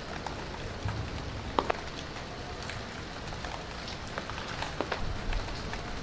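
Steady rain-like patter with a few scattered sharp ticks.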